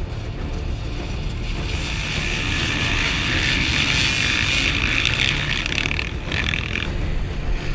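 A pack of motocross bikes racing past together. Their engines swell to a high blare about three seconds in and drop away near the end.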